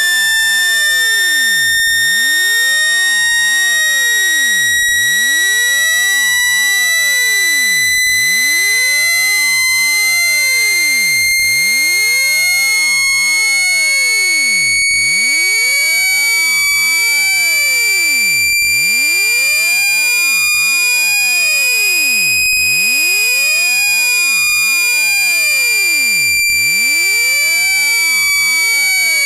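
A continuous, loud synthesized speaker-cleaning tone: a shrill, buzzy electronic note with overtones, gliding slowly upward in pitch and dipping slightly near the end. It is played through a phone speaker to vibrate water and dust out of it.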